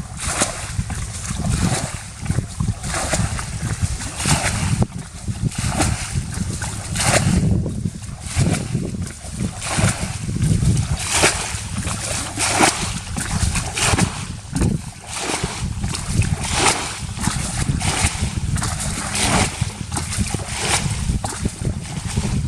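Water splashing and sloshing in irregular bursts every second or two, over a steady low rumble.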